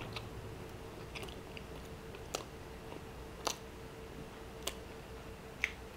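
Close-up quiet chewing of a mouthful of food, with a few short sharp mouth clicks about once a second, over a faint steady hum.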